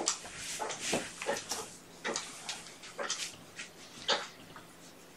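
A kitten retching, a rhythmic run of short heaves about two a second that eases off near the end: the build-up to vomiting after overeating.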